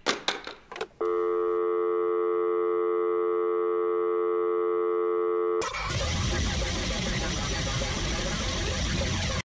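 A telephone handset clatters down onto a rotary phone, followed by a steady telephone dial tone for about four and a half seconds. The tone gives way to loud static hiss, which cuts off suddenly just before the end.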